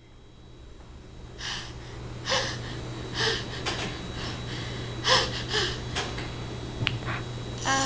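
A baby making short, breathy huffs and gasps, about six of them spaced irregularly, over a steady low hum.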